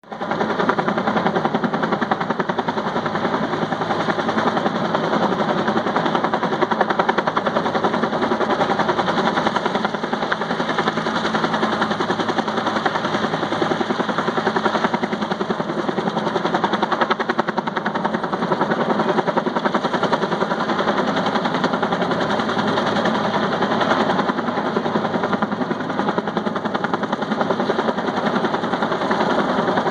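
Helicopter hovering with a utility pole slung on a long line, its rotor blades beating in a rapid, steady chop.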